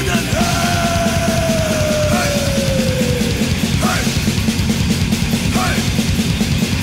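Thrash metal band recording: distorted electric guitars, bass and drums driving a fast, pounding rhythm. About half a second in, a long held note starts and slides slowly downward for about three seconds; two short upward squeals follow later.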